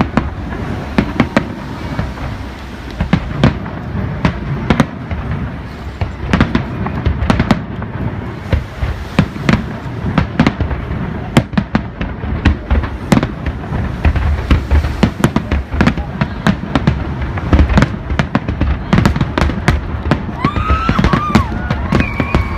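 Aerial firework shells bursting in rapid, irregular succession: a steady barrage of sharp bangs over a deep rumble, with a wavering high-pitched sound near the end.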